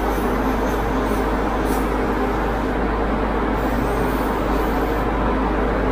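Airbrush hissing steadily as it sprays, over the steady hum of an air compressor motor running.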